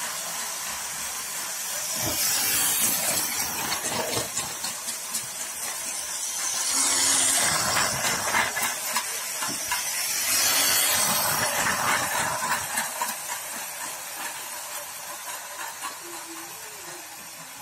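Toy train running on a plastic track laid on a hard floor: a steady hissing rattle full of small clicks. It swells and fades a few times and dies away toward the end.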